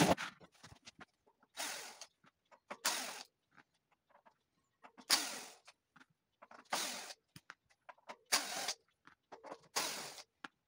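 Cordless drill-driver spinning in about six short bursts as it backs the bolts out of an e-bike hub motor.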